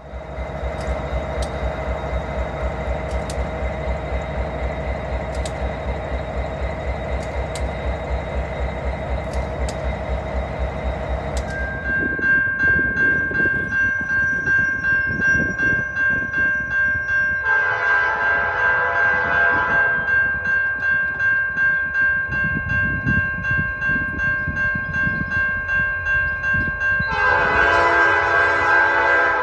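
A steady pulsing rumble, then an approaching freight train's diesel locomotive sounding two long blasts on its horn, the second near the end.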